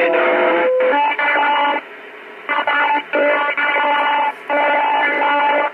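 Received CB radio transmission with garbled, robotic-sounding audio: several bursts of steady, music-like tones broken by short gaps, which sounds different from a normal voice.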